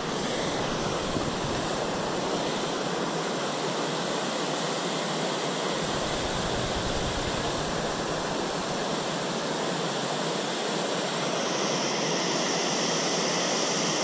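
Steady, even rush of running water from a rain-swollen pond, growing slightly brighter and hissier near the end.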